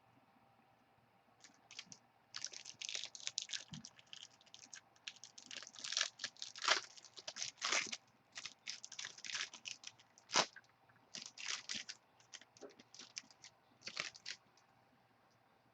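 Trading-card pack wrapper being torn open and crinkled as the cards are handled: a run of short crackling, rustling bursts that starts about two seconds in and stops about a second before the end.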